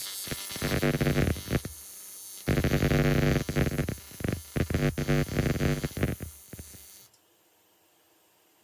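AC TIG welding arc on aluminum: a buzz with a hiss and irregular crackling, in two longer stretches, that cuts off suddenly about seven seconds in.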